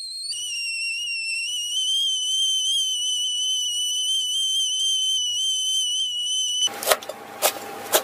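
Kettle whistling at the boil: one steady, high whistle that wavers slightly and cuts off about seven seconds in. Then a knife chops through fresh coriander, two sharp chops near the end.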